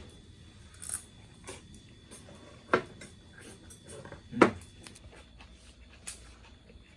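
Scattered clicks and knocks of utensils and tableware at a meal table, about five in all, the loudest about four and a half seconds in.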